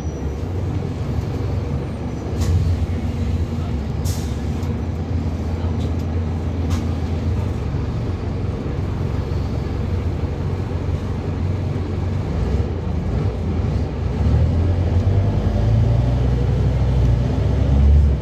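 Scania N230UB double-decker bus's five-cylinder diesel engine and drivetrain running as the bus drives along, heard from inside the upper deck as a steady low rumble with a few clicks and a short hiss about four seconds in. The engine note grows louder near the end.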